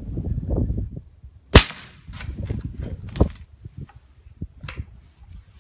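A single shot from a short-barreled Handi Rifle firing a 300 Blackout subsonic load: one sharp crack about a second and a half in with a short echo after it, followed by a few much lighter clicks.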